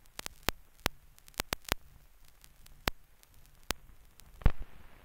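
Scattered clicks and pops over a faint hiss, the crackle of dust and scratches on an old film print's soundtrack, with a heavier thump about four and a half seconds in.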